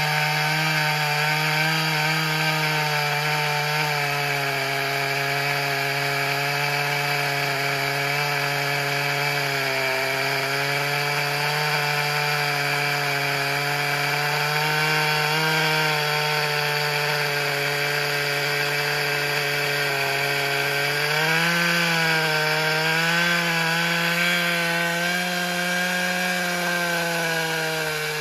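Echo CS-590 TimberWolf two-stroke chainsaw with a 24-inch bar and a new chain cutting through a 35-inch poplar log. The engine holds high revs under load, its pitch wavering slightly and rising a little about two thirds of the way through.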